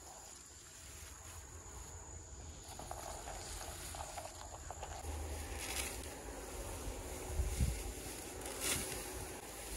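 Quiet outdoor ambience: a low rumble, a faint steady high-pitched insect drone, and a few soft rustles or clicks, all a little louder from about halfway through.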